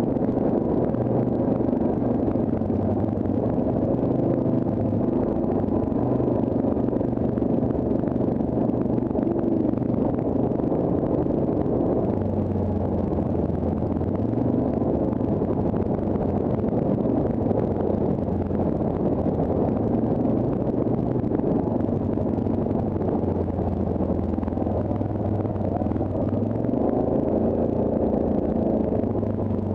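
Yamaha Grizzly ATV engine running steadily at low speed over a rough dirt trail, its pitch stepping up a little about twelve seconds in and again near the end.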